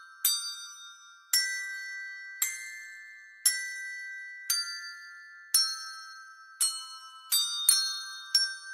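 Colour-coded handbells playing a slow melody, one ringing note about every second, each struck and left to die away, with quicker notes near the end.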